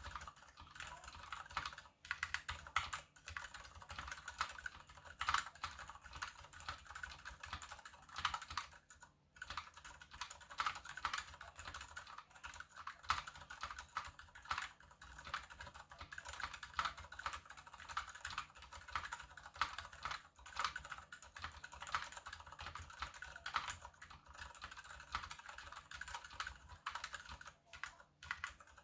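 Continuous typing on a KBD75 mechanical keyboard with unlubed Gateron Silent Brown switches, a brass plate and PBT DSA keycaps: a fast, steady stream of key presses with a few short pauses.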